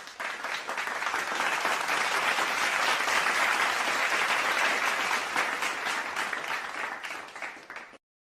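Crowd applauding, a dense clapping that builds, then dies away and stops near the end.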